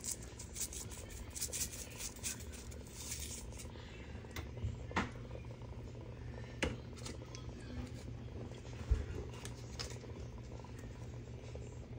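Seasoning shaker being shaken over a pot of simmering soup: a quick patter of fine ticks for the first few seconds, then a few separate clicks and a dull knock, over a low steady hum.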